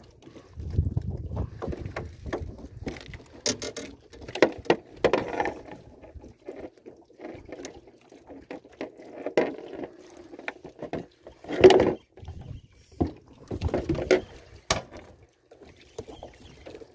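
Irregular knocks, taps and rustling of hands working a hooked corvina and tackle against the side and floor of an aluminium fishing boat.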